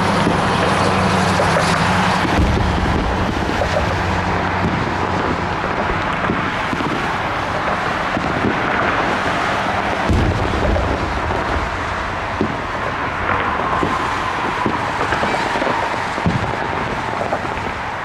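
Fireworks going off: a run of pops and crackles with two heavier booms, about two and a half seconds in and about ten seconds in, over a steady rush of background noise.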